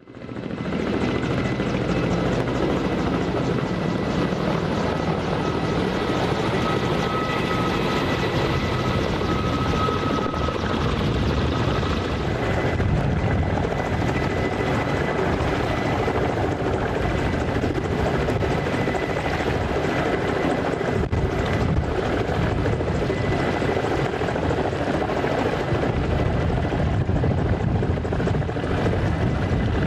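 Helicopter running steadily, its rotor throbbing fast and low under a thin, steady high whine.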